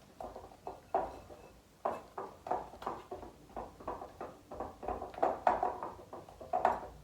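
A spatula stirring thick melted chocolate and butterscotch chips in a microwave-safe bowl, scraping and knocking against the bowl in quick, irregular strokes about twice a second.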